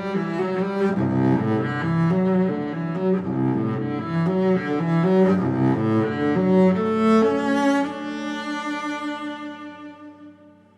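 Background instrumental music: a melody of sustained notes over lower held notes, fading out over the last few seconds.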